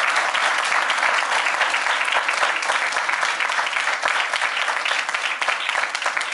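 A small audience clapping steadily, a dense patter of many hands.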